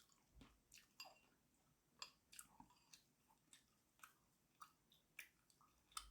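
Faint chewing and mouth sounds of a person eating: soft irregular clicks and smacks, roughly one every half second to a second.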